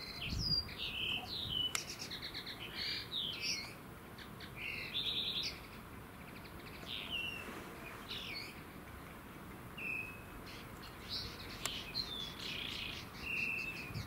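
Small songbirds chirping and singing: a string of short chirps, down-slurred whistles and a few quick trills, some overlapping.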